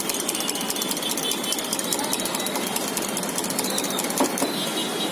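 A small engine running with a rapid, even chatter over a steady noisy background. The chatter fades about four seconds in.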